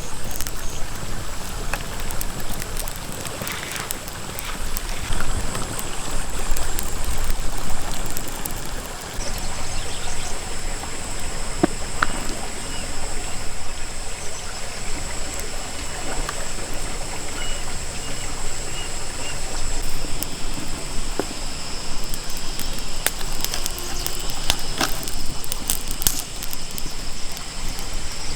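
Water trickling and splashing steadily, with scattered sharp clicks and knocks.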